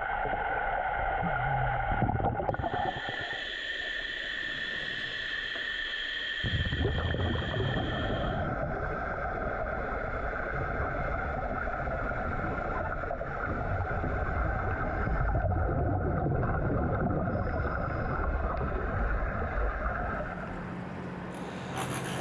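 Underwater sound in a pool: a muffled low rumble with several steady humming tones above it, which shift a few seconds in and again a couple of times after.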